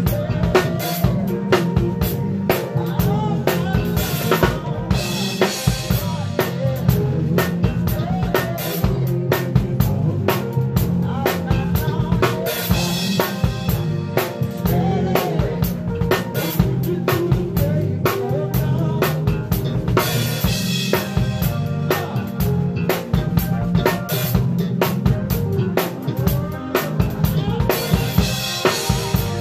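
Live soul-funk band playing, heard close beside the drum kit: the drums are loudest, with snare, kick and cymbal strokes driving a steady groove over a stepping bass line. Crash cymbal washes ring out roughly every seven to eight seconds, at the turns of the phrases.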